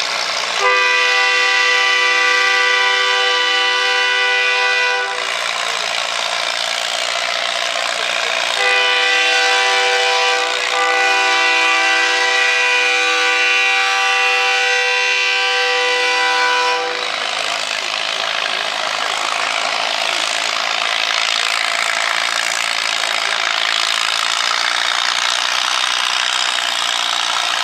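A multi-note horn sounds two long, steady blasts, the first about four seconds long and the second about eight, with a short dip in the middle of the second. Under and after them runs the steady noise of a Farmall tractor engine pulling the sled under load.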